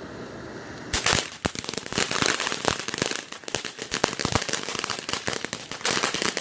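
Consumer fireworks crackling: a rapid, dense run of sharp pops and cracks that starts about a second in and keeps going.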